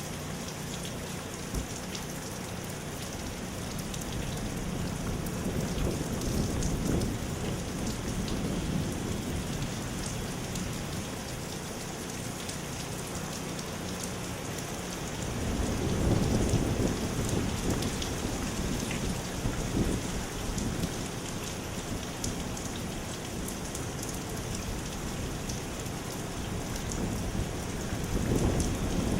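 Steady heavy rain from a hurricane feeder band, with low rumbling swells rising and fading three times: about a quarter of the way in, just past halfway, and at the very end.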